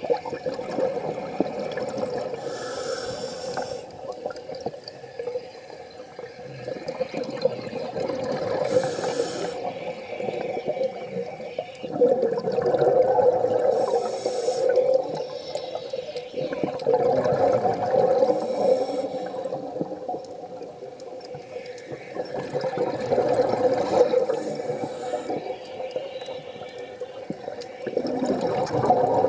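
A scuba diver breathing through a regulator underwater, over a few breaths. Short hisses of inhaled air alternate with longer, louder rushes of exhaled bubbles.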